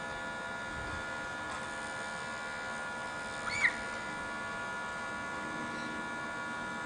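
Steady electrical hum and whine made of several fixed high tones. One short high squeak rises and falls about three and a half seconds in.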